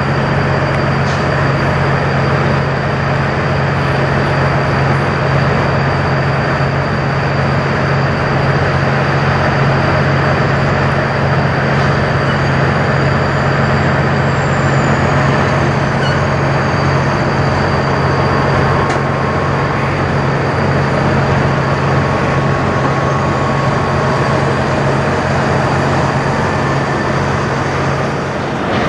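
Heavy diesel semi-truck engine running with a steady, unchanging low drone, with road and traffic noise.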